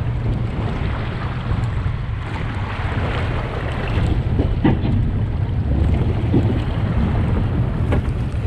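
Wind buffeting the microphone over a steady low rumble, with a couple of short knocks about halfway through and near the end.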